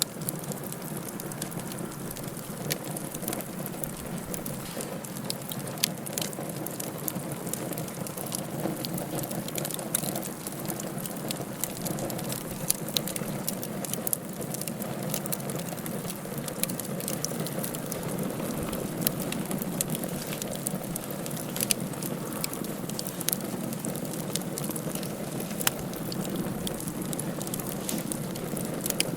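Wood fire crackling in a fireplace: a steady hiss with frequent sharp pops and snaps scattered throughout.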